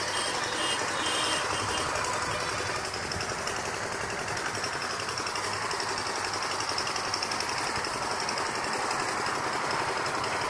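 An engine running steadily with a fast, even pulse.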